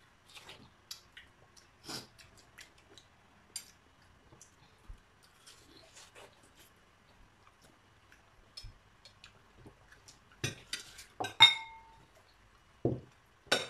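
Ceramic plates and cutlery clinking and tapping on a dining table, sparse and light at first, then a louder clatter of several knocks near the end, one plate ringing briefly.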